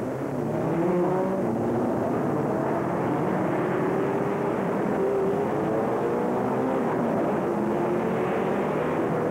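A pack of 1960s sports-racing cars at full throttle just after the start of an endurance race, many engines sounding together, their pitches overlapping and slowly rising as they pull away.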